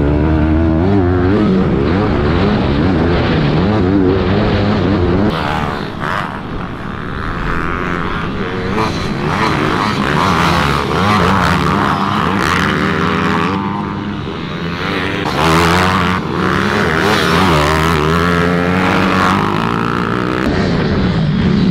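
Minibike racing engines revving hard, their pitch rising and falling again and again as the bikes accelerate and back off through the turns. The sound turns brighter and higher-pitched from about five seconds in until near the end.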